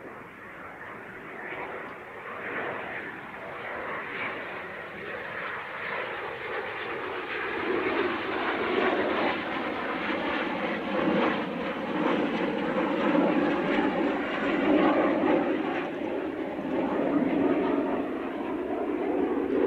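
Kawasaki T-4 jet trainer's twin turbofan engines on landing approach: a steady jet roar that grows louder as the aircraft closes in, with a low engine hum joining about eight seconds in.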